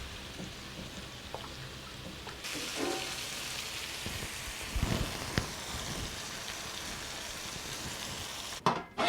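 Pieces of dried fish frying in hot coconut oil in a pan: a steady sizzle that grows louder about two and a half seconds in, with a few light clicks of a utensil and a knock about five seconds in.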